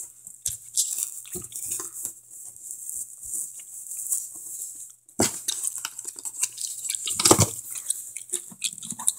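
Handling noise from a cardboard doll box and its packaging as a doll is worked out of it: rustling and scraping with scattered small clicks, and louder knocks about five and seven seconds in.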